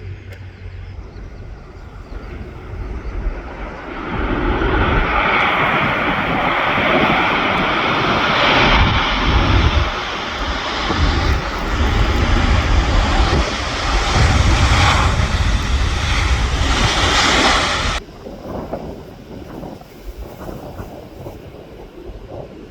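Fixed-wing aircraft's engines running loudly. The roar builds about four seconds in and cuts off suddenly a few seconds before the end, with wind buffeting the phone's microphone throughout.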